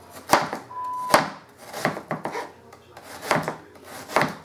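Chef's knife slicing through an onion and knocking on a plastic cutting board, about six cuts at an uneven pace.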